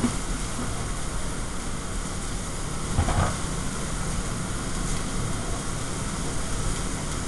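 Steady din of a commercial kitchen: the exhaust hood fan running with food sizzling on the line. A brief clatter about three seconds in.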